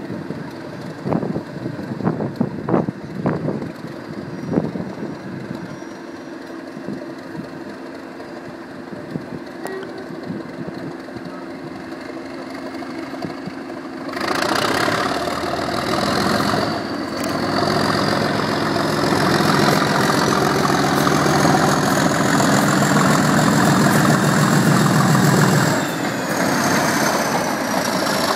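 Class 97/3 locomotive 97302, a rebuilt Class 37 with an English Electric V12 diesel, idling with a few short knocks. About halfway in it opens up hard to pull away under load: the engine note rises sharply and a turbocharger whistle climbs for about ten seconds. The whistle and engine note ease off near the end.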